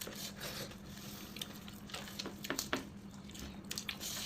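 Close eating sounds: scattered clicks and smacks of chewing and handling food, over a steady low hum.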